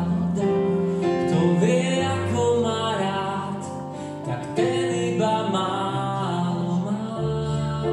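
Small live band playing a slow song: stage keyboard chords with a voice singing a melodic line over them.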